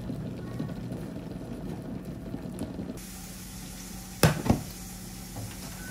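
Pot of hot water on an induction hob, with dried noodles dropped in and a steady low hum under it. A little past four seconds in come two sharp knocks close together, the loudest sounds, over a faint hiss from the frying pan and pot.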